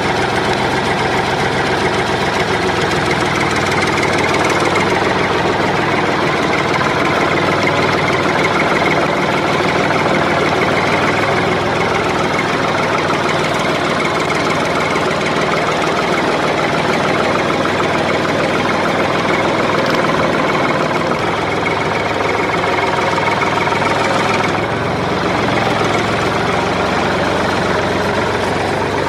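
An engine running steadily, with an even, unchanging rumble like heavy machinery idling.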